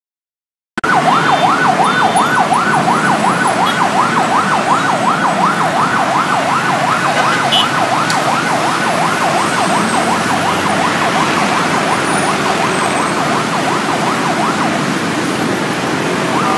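Ambulance siren on a fast up-and-down yelp, about three sweeps a second, over traffic noise; the siren fades out a couple of seconds before the end.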